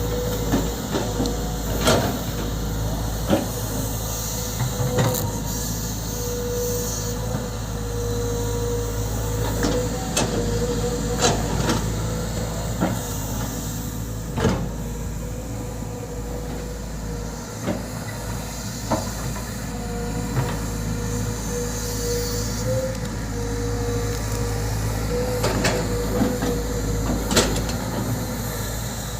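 Volvo EC200D excavator running: a steady engine drone with a held whine, broken by scattered sharp clanks and knocks.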